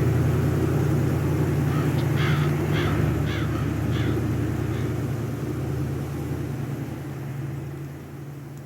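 Crows cawing, a run of about five short, falling caws around the middle, over a steady low hum that fades away toward the end.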